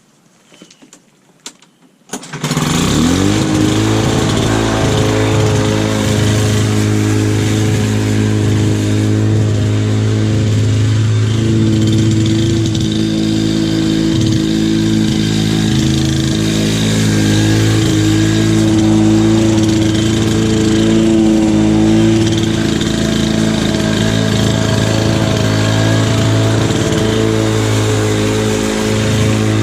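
1991 Lawn-Boy M21BMRD two-stroke mower engine starting about two seconds in, quickly rising to speed, then running steadily at full throttle while mowing with the rear bag on.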